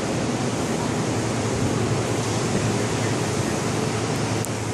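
Semi truck's diesel engine idling, a steady low hum under a broad rushing noise, as the air-ride system airs up.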